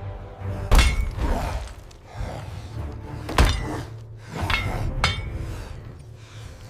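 Dramatic music with four sharp crashing impacts, the loudest about a second in and about three and a half seconds in.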